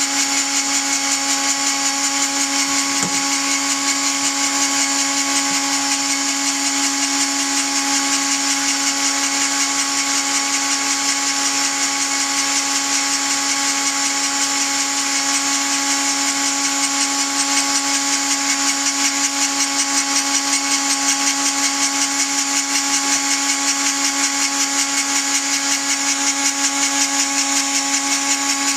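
A Dremel-type rotary tool driving a belt-driven tool post grinder spindle, running at a steady pitch along with the turning 7x mini lathe, while a small grinding point grinds the chuck jaws true. A steady whine with a faint hiss; it does not change.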